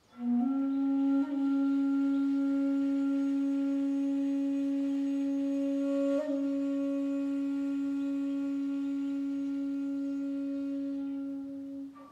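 A single long wind-instrument note held for about eleven seconds, rising slightly in pitch right as it starts and tapering off near the end.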